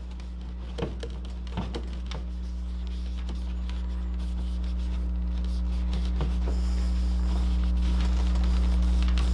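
Microfiber cloth wiping the plastic housing of a motorcycle turn signal, with soft rubbing and a few light knocks, over a steady low hum that slowly grows louder.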